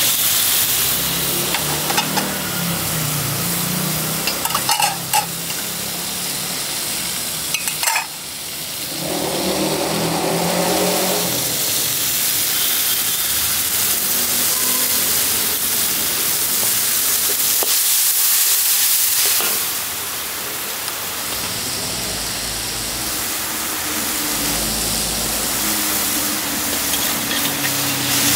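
Pad thai noodles sizzling as they fry in a hot pan, a steady hiss, with a few sharp metal clinks in the first eight seconds.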